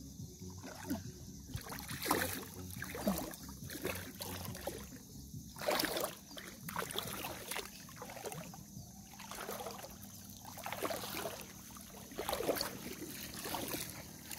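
Shallow seawater sloshing and splashing as someone wades through it, in irregular swishes every second or two.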